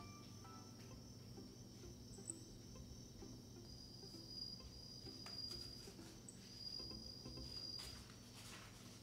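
Insects trilling steadily at a high pitch, with two louder trills in the middle lasting about two seconds and one second, and a few faint taps near the end.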